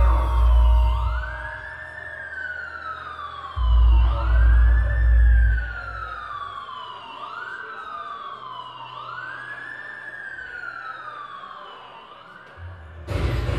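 Live electronic music: a synthesizer tone that sweeps up and slides back down about every two and a half seconds, like a siren, over deep throbbing bass pulses that stop about six seconds in. A loud, dense wash of noise cuts in suddenly near the end.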